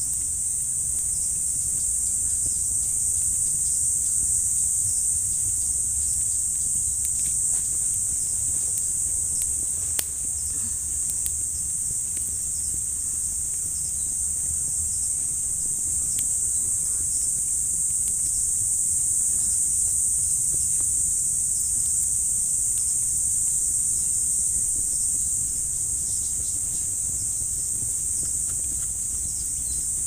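Steady high-pitched drone of a forest insect chorus, over a low rumble, with a single sharp click about ten seconds in.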